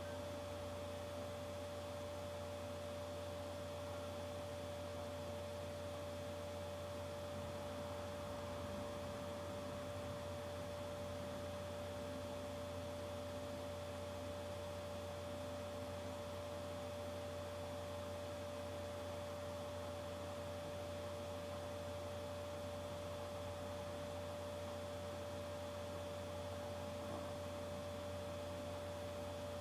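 Steady electrical hum with a clear held tone over it, unchanging, with no speech.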